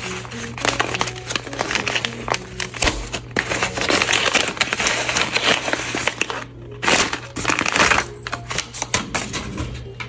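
White paper bag crinkling and rustling loudly as it is squeezed and handled, in dense crackly bursts with a short lull a little past halfway, over soft background music.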